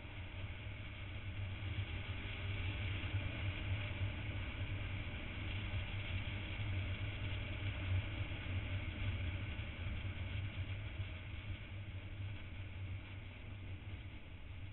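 Motorcycle riding at speed, heard through an onboard camera: a steady, choppy low rumble of wind buffeting the microphone over the hum of the engine, easing off somewhat near the end.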